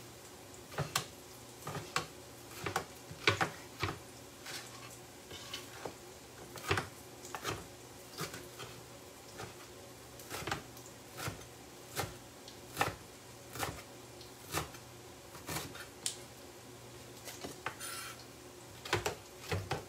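Knife chopping fresh parsley on a wooden cutting board: slow, separate knocks of the blade against the board, about one or two a second, over a faint steady hum.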